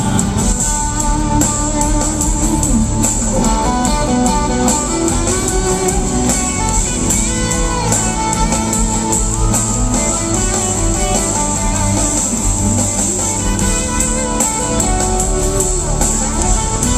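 A live country band playing an instrumental passage with guitar out front and no singing, recorded from the crowd in a large arena.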